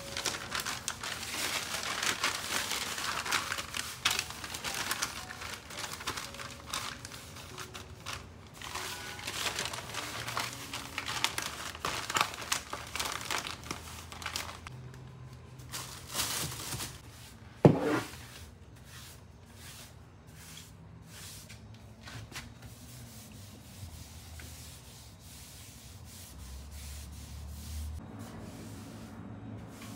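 Newspaper sheets being gathered, crumpled and folded by hand: steady crinkling rustle for about the first half, then quieter, scattered rustles. A single sharp knock a little past the middle is the loudest sound.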